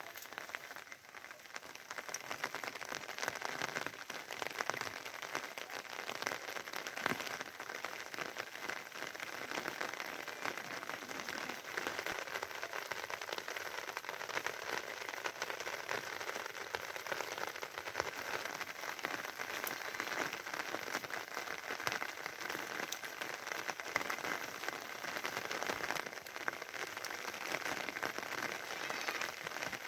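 Steady rain falling, a dense patter of many small drop hits.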